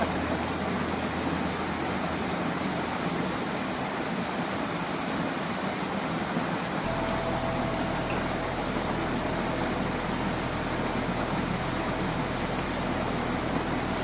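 Small waterfall cascading over rocks into a stream, a steady rush of water without a break.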